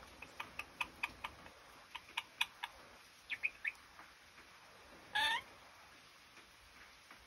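A red lory making a run of short clicking chirps and a few brief high notes, then one short, louder call about five seconds in.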